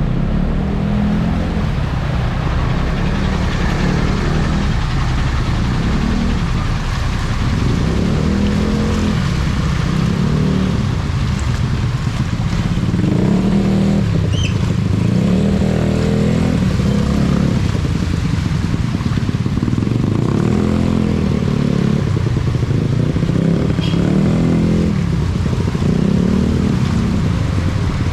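Heavy rain falling steadily over a deep low rumble that swells every second or two.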